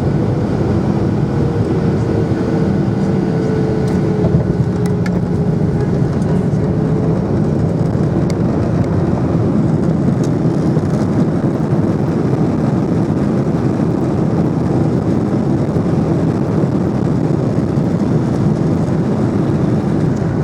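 Steady roar of a Boeing 737-800's jet engines and airflow heard inside the passenger cabin.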